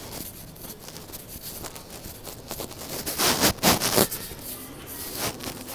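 A rush of moving air, loudest for about a second just past the middle with two surges, at the moment of passing through a store's automatic glass entrance doors. The rest is low, steady indoor background.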